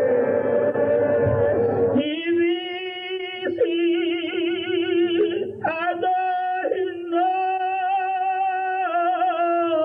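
Many voices of a large crowd chanting together, then, from about two seconds in, a single voice chanting a prayer alone in long held notes with heavy vibrato, pausing briefly between phrases.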